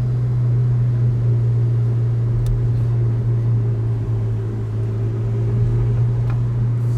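Ferrari 488 GTB's twin-turbo V8 running at a steady low speed, a constant low drone with no revving or gear changes.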